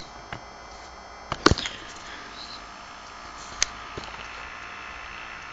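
A few sharp clicks and knocks over a steady background hiss, the loudest a quick cluster about a second and a half in and a single click about three and a half seconds in, typical of a handheld camera being handled and moved.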